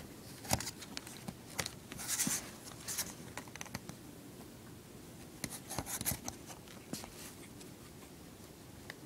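A puppy scrabbling and scratching at blankets in its bed, with soft rustles and scattered small scratches. Two longer scuffles come about two seconds in and again past the middle.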